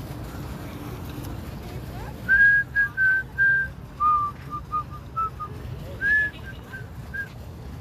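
A person whistling a short tune, starting about two seconds in: a few clear held notes, a run of shorter lower notes, then a few high notes again.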